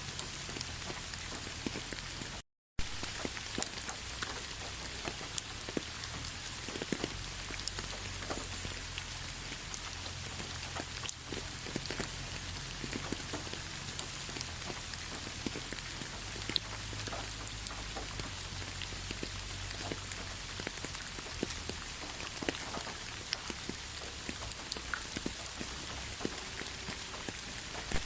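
Steady rain falling, an even hiss dotted with the clicks of single drops striking a surface. The sound cuts out completely for a moment about two and a half seconds in.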